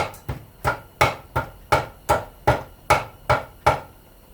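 Hammer striking a scrap fan-motor part in a steady run of about ten sharp blows, roughly three a second, knocking off broken plastic. The blows stop a little before the end.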